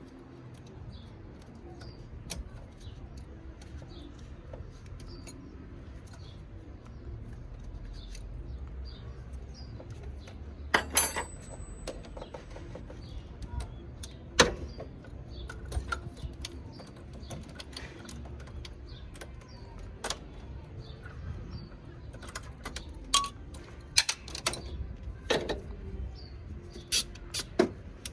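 Faint bird chirps repeating over a low background rumble, with scattered sharp clicks and knocks, the loudest a little over a third of the way in and again about halfway.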